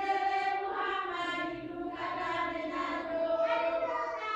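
High-pitched singing: a melodic chant with long held notes that glide slowly from one pitch to the next.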